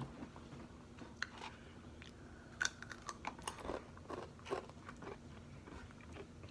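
Takis rolled corn tortilla chips being bitten and chewed, with irregular crisp crunches.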